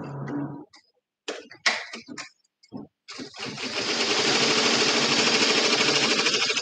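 Multi-needle embroidery machine: a few short clicks and knocks, then from about three seconds in it runs steadily, a fast, even clatter of stitching.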